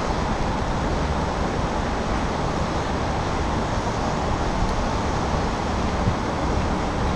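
Steady low rumble of a river boat's engine under way, with wind noise on the microphone.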